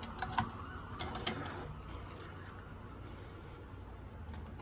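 Quiet handling at a stopped industrial sewing machine: a few light clicks in the first second or so, then soft fabric rustling as the work is set under the presser foot, over a low steady hum.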